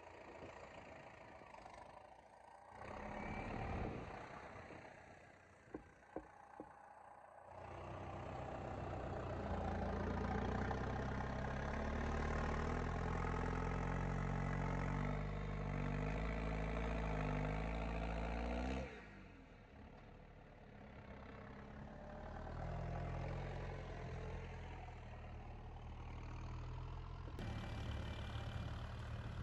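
A farm vehicle's engine running across several cut-together clips, its speed rising and falling, loudest in the middle stretch. A few sharp knocks sound about six seconds in.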